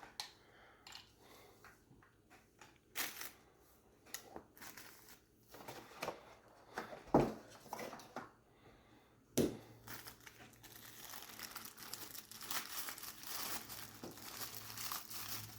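Packaging crinkling and rustling as items are handled, with scattered small knocks, two of them sharper about seven and nine and a half seconds in. The rustling becomes continuous from about ten seconds in.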